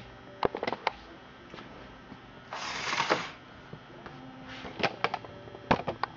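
Scattered sharp clicks and knocks of things being handled, with a brief rustle about two and a half seconds in.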